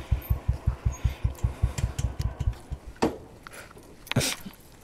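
Royal Enfield Classic's single-cylinder engine idling with a steady low thump, about seven beats a second, then switched off about two and a half seconds in. Two sharp clicks follow.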